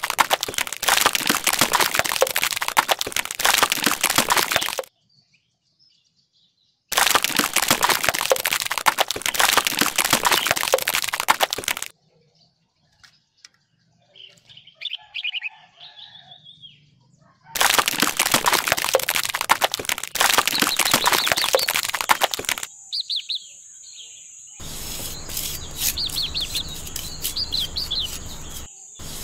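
Wet cement slurry poured from a small bucket onto a flat miniature roof, a dense crackling, splattering noise in three long stretches with short gaps. In the gaps birds chirp faintly. Near the end a low steady hum runs under the scraping of a tiny trowel spreading the cement.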